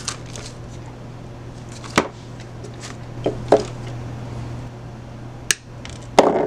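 A few small clicks and taps, with a short rustle near the end, from a hot glue gun and artificial maple leaves being handled, over a steady low hum.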